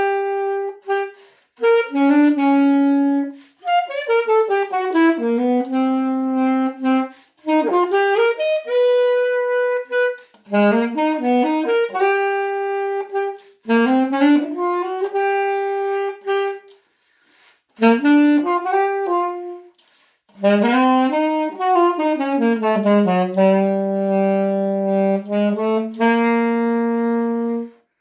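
Unaccompanied solo saxophone playing a slow melody in short phrases. Each phrase climbs and ends on a held note, with brief pauses for breath between phrases.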